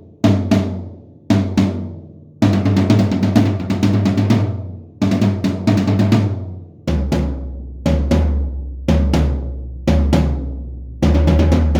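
Sonor HiLite maple-shell drums struck in quick groups of strokes and short rolls, each drum ringing out between groups. About seven seconds in, the playing moves to a deeper-pitched drum.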